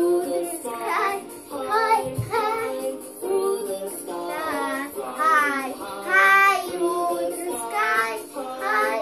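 A young boy singing a song in short phrases of about a second each.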